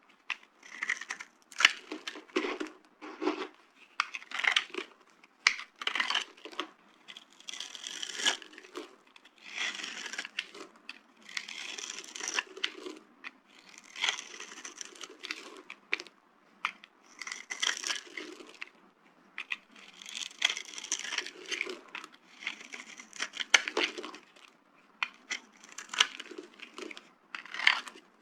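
Dry carved soap being crushed, a long run of crumbly crunches and crackles, one every second or two, with short pauses between.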